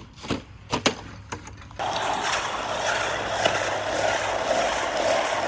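Fast RC car driving: a few sharp knocks, then from about two seconds in its motor and tyres run steadily and loudly.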